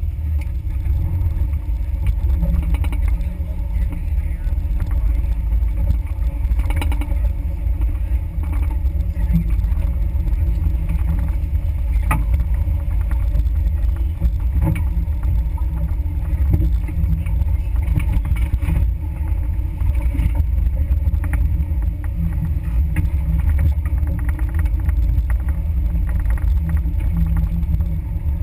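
Suzuki Samurai 4x4 driving slowly along a rough dirt trail: a steady, low engine and drivetrain rumble with scattered knocks and rattles as the vehicle rolls over bumps.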